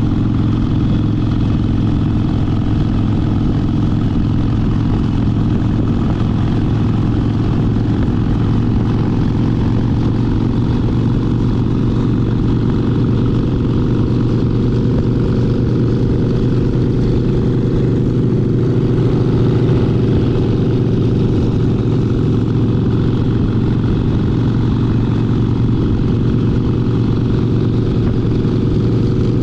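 Harley-Davidson Sportster 72's air-cooled V-twin engine running steadily under way, its low note holding at a near-constant pitch with no big revs or shifts.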